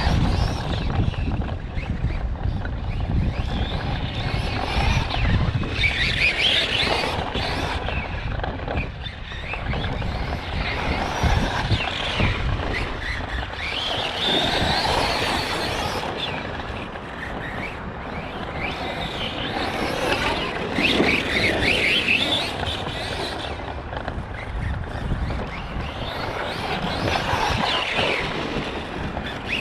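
Arrma Kraton 4S radio-controlled truck's brushless motor and drivetrain whining, rising and falling in pitch again and again as it speeds up and slows around the track. A squeal runs through it, from a bearing or gear that the owner suspects has gone bad.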